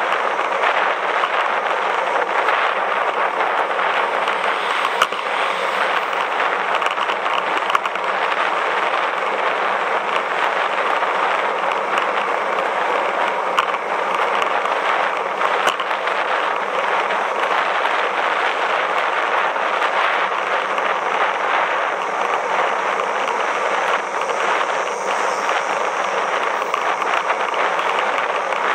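Riding noise picked up by a camera mounted on a moving road bicycle: a steady rushing hiss with a constant fine crackle of road vibration.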